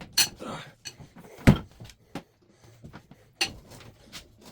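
Sharp metallic clanks and knocks of a wrench and socket working the tight cylinder head bolts on a Subaru EJ251 engine, sped up to double speed. The loudest knock comes about a second and a half in.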